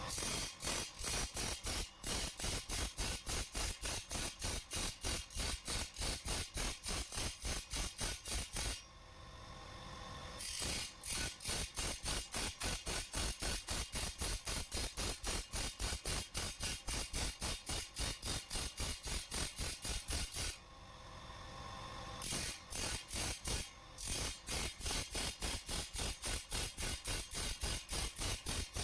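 Steel chaff-cutter blade being worked to cut its teeth and edge: rapid, even scraping strokes of metal on metal, about four a second. The strokes stop twice for a second or two, leaving a steady hum.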